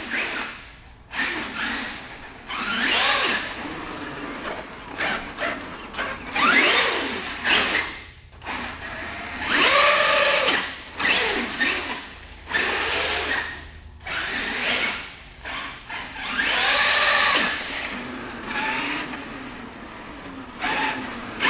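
Traxxas X-Maxx RC monster truck's brushless electric motor whining in short bursts of throttle, about every second or two, the pitch rising and falling with each burst.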